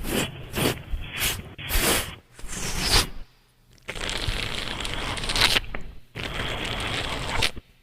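A beatboxer making sound effects with the mouth: a run of short, sharp noisy bursts, a brief pause, then two longer, steady noisy sounds of a second or two each.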